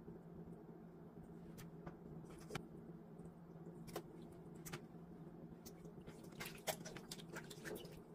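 Hands cleaning raw chicken gizzards in a pot of water: faint wet squelches, small clicks and splashes as the pieces are handled, busiest about six to seven seconds in, over a faint steady hum.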